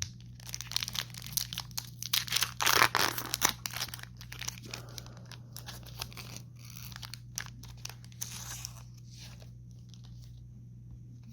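A Magic: The Gathering set booster pack's foil wrapper being torn open and crinkled, in sharp crackling bursts that are loudest in the first four seconds, then softer crinkles that die away about nine seconds in. A low steady hum runs underneath.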